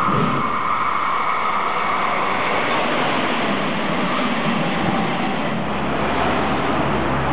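An electric locomotive and its regional coaches passing close by, with steady wheel-on-rail rumble and a high whine that fades out in the first two seconds. About five seconds in, the sound cuts to a lower, steady rumble as a diesel railcar approaches beside road traffic.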